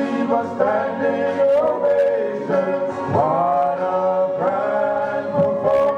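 Male gospel vocal group singing together into microphones, holding long notes in harmony with scooping slides into each new note.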